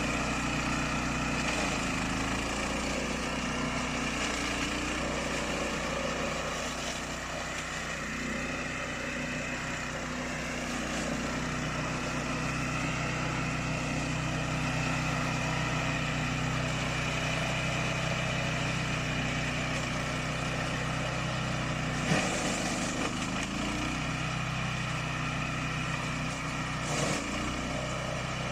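Remote-control flail mower's engine running steadily under load, its pitch dipping and recovering several times as it works, with a sharp knock about two-thirds of the way through.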